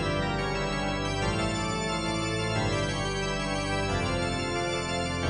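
Background music of sustained organ-like chords, with the notes changing every second or so.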